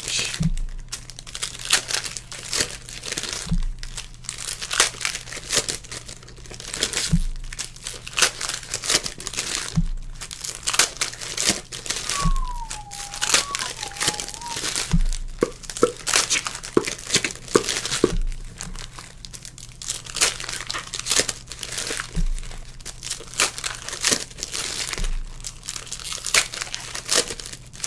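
Foil baseball-card packs being torn open and crinkled by hand, a continuous run of crackling rustles, with a soft low thump every few seconds.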